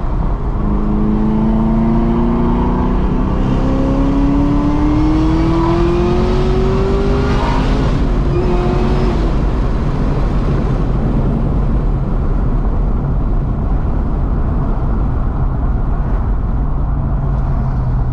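Supercharged 6.2-litre V8 of a heavily modified Camaro ZL1 heard from inside the cabin, accelerating with its pitch rising steadily for about seven seconds. It then eases off and settles into a steady low drone as the car cruises, with road noise underneath.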